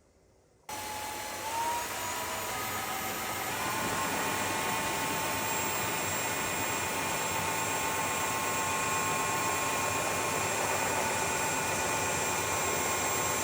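NORDN BLAST cordless vacuum cleaner switching on about a second in and running steadily with rushing air and a motor whine, the whine stepping up a little in pitch twice in the first few seconds.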